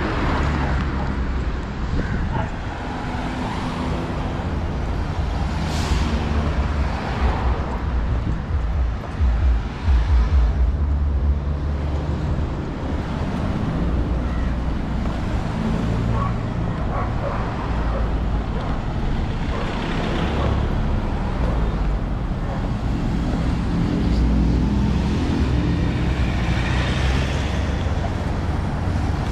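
Street traffic: vehicle engines running and passing in a steady low rumble, with a louder pass about ten seconds in.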